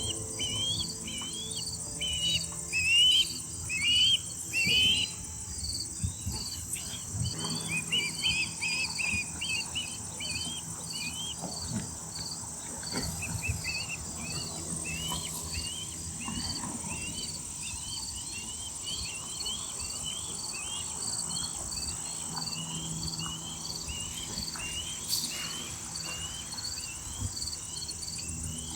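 A steady, high-pitched chorus of crickets. Over it, a bird repeatedly gives short, rising whistled chirps, a few a second, loudest in the first few seconds.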